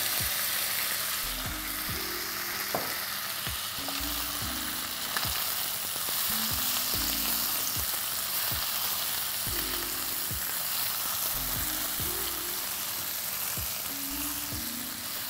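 Pieces of parboiled squid sizzling in hot oil with fried onions and ginger-garlic paste as they are stirred in a pan, a steady hiss with an occasional sharp knock of the spatula against the pan.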